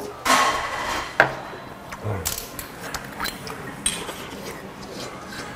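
Clinks and knocks of a green glass Ipsae soju bottle and tableware on the table as the bottle is reached for and picked up: a short rustling stretch, then a few separate sharp clicks.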